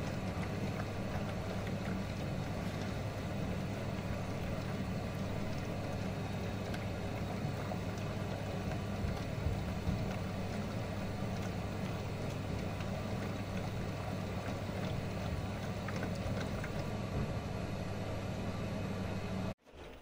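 Miele Softtronic toy washing machine running, its small electric motor giving a steady hum. The sound cuts off abruptly just before the end.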